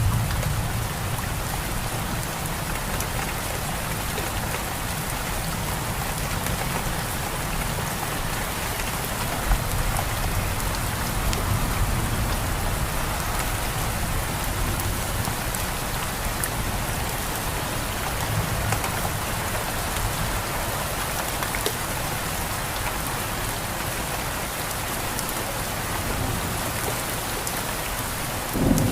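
Steady heavy rain falling on surfaces, a dense even hiss with individual drops pattering through it. A deeper low rumble of thunder swells in just before the end.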